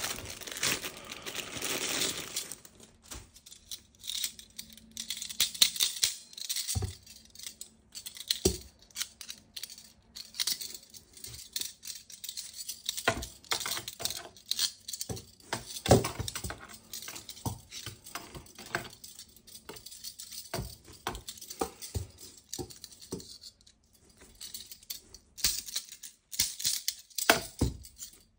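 Plastic toy weapon parts and their packaging being handled: a stretch of crinkling and tearing in the first couple of seconds, then a steady scatter of light plastic clicks, knocks and rattles.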